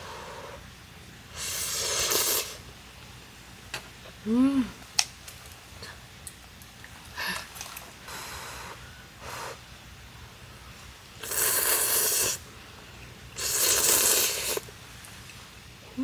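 Ramen noodles being slurped: three long noisy slurps, one about a second in and two close together near the end. Between them come light clicks of utensils and a short hummed 'mm'.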